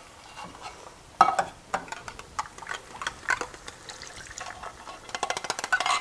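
Thinned cream of soup poured from a tin can into a skillet, with liquid splashing and irregular clicks and scrapes, coming in a quick run near the end.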